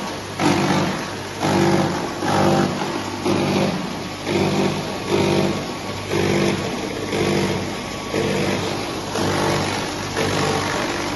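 DK-50 electric disc-and-drum wood crusher running under load, with a steady low hum. A loud grinding surge comes about once a second as wood is chipped and crushed.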